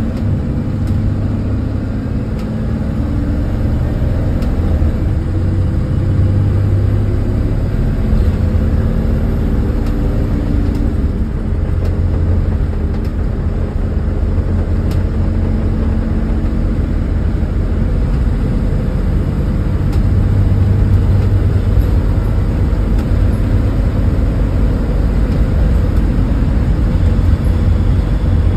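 School bus engine and road noise heard from inside the bus cabin while driving, a steady low drone that gets a little louder about two-thirds of the way through.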